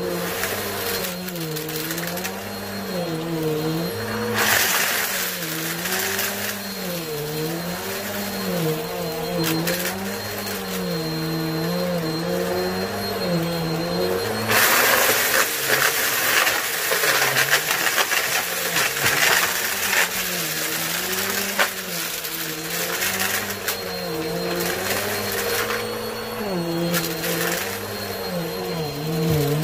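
Vacuum cleaner motor running, its hum dipping and rising in pitch every second or two as the nozzle is worked back and forth. In a few longer stretches grit and small debris rattle and crackle up the nozzle.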